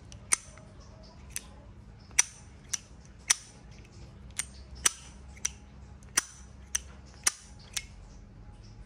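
Zippo lighter being handled, its hinged metal lid snapped open and shut about a dozen times in sharp clicks at uneven intervals, several in quick pairs.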